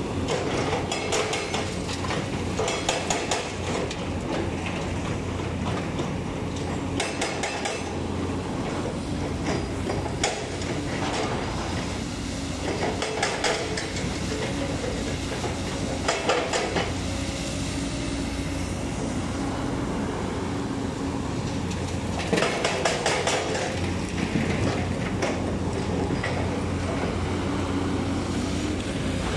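JCB 220 LC tracked excavator's diesel engine running steadily as it works, with bursts of metal clanking and rattling every few seconds from its steel tracks and bucket working rock.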